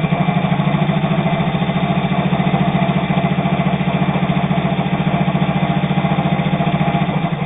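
Singer 201 all-steel sewing machine running fast, its built-in motor and worm-gear drive humming with a rapid, even stitching rhythm as the sharps needle punches through two layers of heavy split leather without labouring. It stops just before the end.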